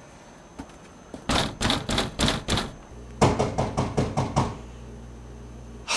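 Rapid knocking in two runs of sharp strikes, about four a second, the second run over a low steady hum.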